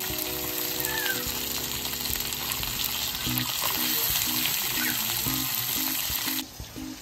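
French-trimmed lamb rack chops sizzling in fat on a hot griddle pan, a steady crackling hiss that drops away about six seconds in.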